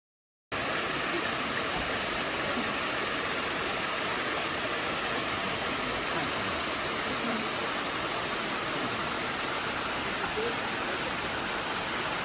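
Waterfall's steady rush of falling water, starting abruptly about half a second in.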